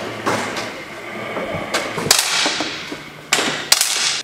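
10 m air pistols (4.5 mm) firing on an indoor range: about six sharp shots at uneven intervals, each followed by a ringing echo that dies away.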